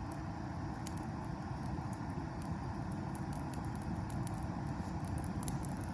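A low campfire being fanned back to life: a steady rushing rumble of forced air and flame, with the wood crackling in scattered sharp pops. The rush stops near the end.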